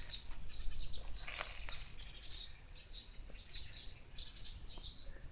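Small songbirds chirping, a quick run of short high notes repeated several times a second.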